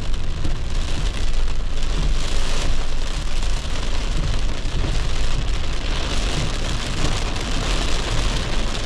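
Heavy rain drumming on a car's windshield and roof, heard from inside the cabin, over a low steady rumble of the moving car.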